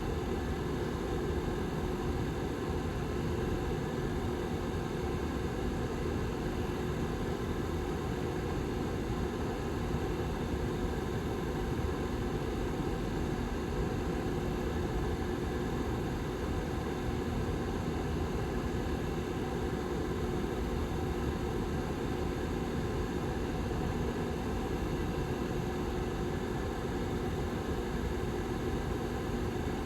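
Lasko 755320 tower heater's rear fan running steadily: an even whoosh of moving air with a faint steady hum from the motor.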